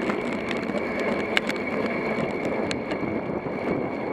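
Road bicycle riding along at about 12 mph: steady wind and tyre noise on the camera microphone, with scattered small clicks and rattles from the bike.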